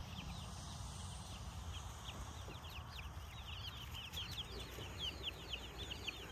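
A flock of young chicks peeping: many short, high, falling cheeps that grow more frequent toward the end, over a low steady rumble.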